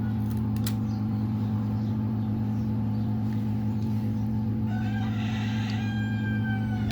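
A rooster crows for about two seconds near the end, over a steady low electrical hum. A couple of light clicks come in the first second.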